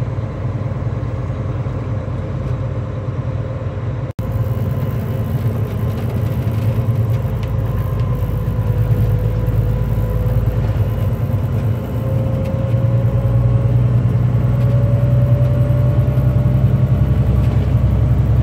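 Steady low rumble of a truck driving, heard from inside the cab, with a faint tone that slowly rises in pitch. The sound cuts out for an instant about four seconds in.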